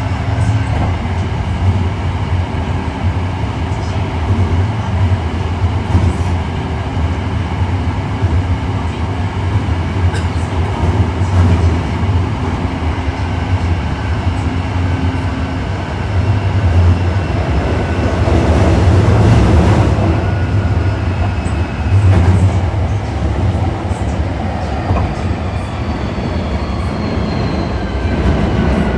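Osaka Metro 1300 series subway train running at speed, heard from inside the car: a heavy rumble from the wheels and track, a few rail-joint clicks, and the steady whine of the Toyo IGBT inverter-driven traction motors, which slides down in pitch near the end.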